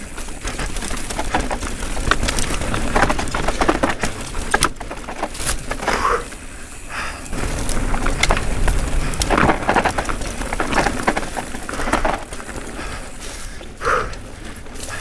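YT Jeffsy 29-inch full-suspension mountain bike riding fast down a dirt trail: tyres rolling over dirt and roots, with constant clattering and rattling from the bike.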